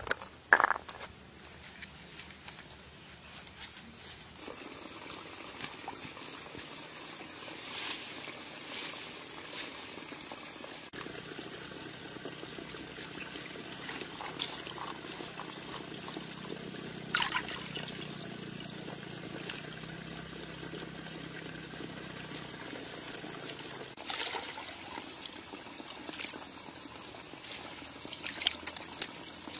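Water trickling and sloshing as small green fruits are handled in a bowl of water, with a few sharp knocks of the fruit against the bowl.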